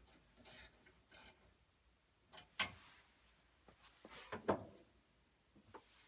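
Hands working inside a gas furnace's burner compartment: a couple of short rubbing scrapes, then scattered sharp metal clicks and knocks, two of them louder, as the cleaned flame sensor and parts are fitted back.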